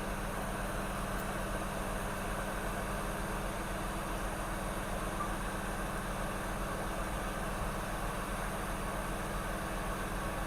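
Steady fan whir with a low electrical hum underneath, unchanging throughout, typical of workbench equipment such as a rework station or fume extractor running.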